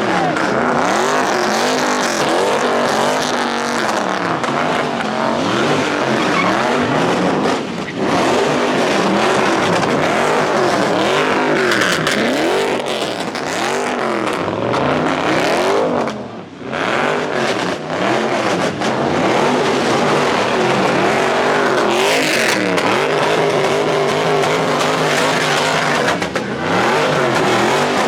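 A car engine revving hard and falling back over and over, its pitch rising and dropping about once a second, with tyres skidding. The loudness briefly dips a few times.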